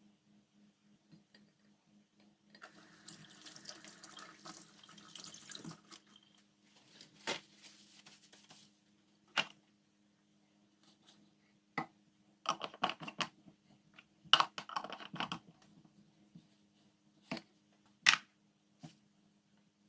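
Kitchen food-packing sounds: about three seconds of hissing noise, a shorter patch of it after that, then scattered clicks, knocks and clatters of containers and utensils being handled, over a faint steady low hum.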